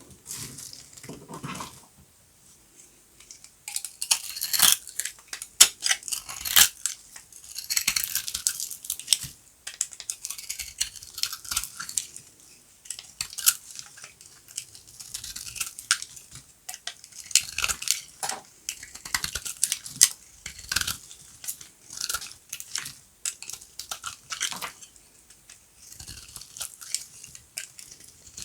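Dry bar soap crunching and crackling as it is cut. The sharp crackles come in irregular bursts with short pauses between them.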